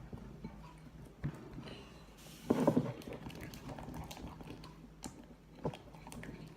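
Homemade PVA-glue slime, still very sticky, being squeezed and pulled by hand: scattered wet clicks and squelches, with a louder squelch about two and a half seconds in.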